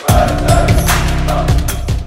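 Music with a heavy kick drum, a held bass note and cymbal hits, starting hard just after a brief break.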